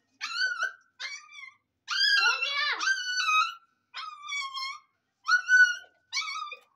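Young puppy whining and crying while it is being bathed: about six high cries, each dropping in pitch, with a longer drawn-out cry in the middle.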